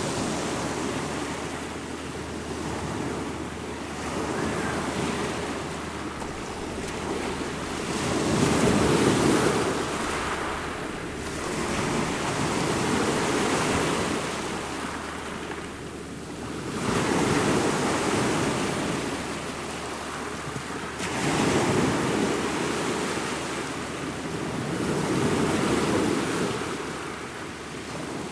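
Ocean waves breaking and washing on the shore: a continuous surf wash that swells and falls back about every four seconds.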